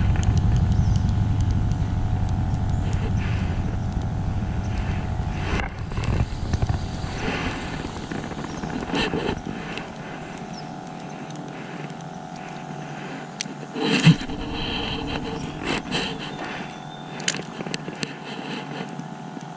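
A low engine rumble, loudest at first and fading away over the first eight seconds or so, over a steady hum. A few light clicks follow, with one sharper knock about fourteen seconds in.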